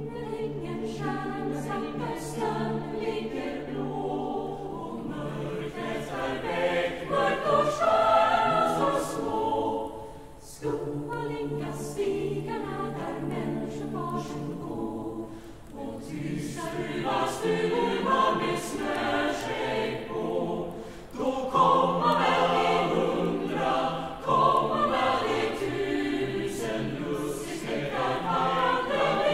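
Choir singing, the phrases breaking off briefly about ten seconds in and again near sixteen and twenty-one seconds.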